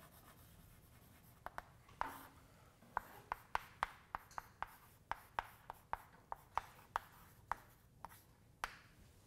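Chalk writing on a chalkboard: a run of sharp, irregular taps, about two or three a second, as each stroke of an equation is put down.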